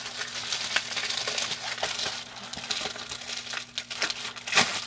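Crinkling and rustling of a shipping mailer as it is torn open by hand, with irregular crackles throughout, a little louder near the end.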